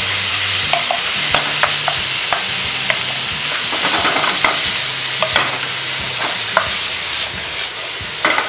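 Minced beef and vegetables sizzling in a very hot wok on full heat, while a wooden spatula stirs and tosses them, knocking and scraping against the pan in frequent short, irregular clicks.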